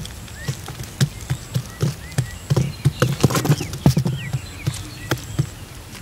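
Quail pecking and scrabbling on a plastic basket: irregular taps, scratches and soft knocks, busiest from about two and a half to four seconds in, with short rising chirps among them.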